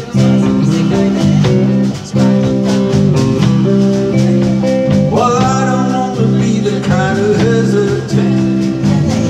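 Live country band playing: electric guitar, acoustic guitar, electric bass and a drum kit keeping a steady beat. A voice or lead line with bending pitch comes in about five seconds in.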